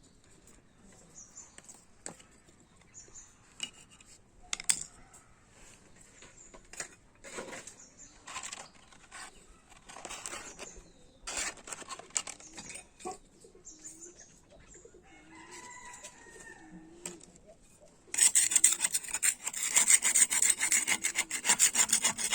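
Hand tools working on a rusty electric water pump: scattered knocks and scrapes, then about eighteen seconds in a loud, fast scraping begins and keeps on.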